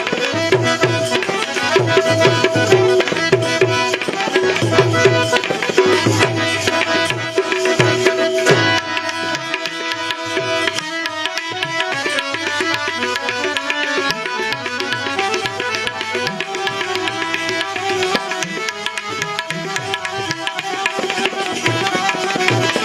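Instrumental break in a Gujarati devotional bhajan: hand drums under steady held melody notes. The deep drum strokes drop away about eight and a half seconds in, leaving lighter playing.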